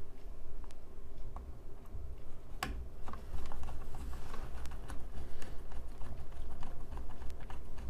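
Small screwdriver working screws into a Lenovo G50-70 laptop's bottom case: light, irregular clicks and ticks of bit, screw and case. There is one sharper click about two and a half seconds in, and the ticking gets busier after it.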